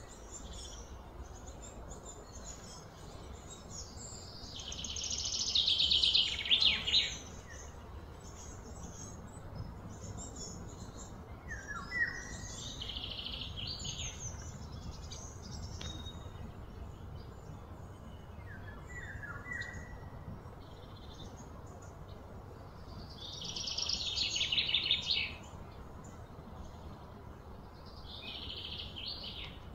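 Birds calling outdoors: short high chirps now and then, and two louder, high trilling bursts of a few seconds each, one about four seconds in and one about twenty-three seconds in, each swelling and then stopping. A steady low rumble lies underneath.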